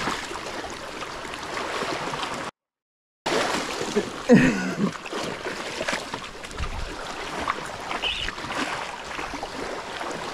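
Shallow sea water sloshing and splashing around people wading with a hooked tarpon, with a louder short sound about four seconds in. The sound cuts out completely for under a second about two and a half seconds in.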